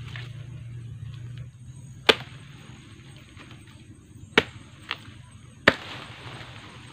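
Machete blade chopping into a dug-up taro corm and its roots: three sharp chops, with a lighter knock between the last two.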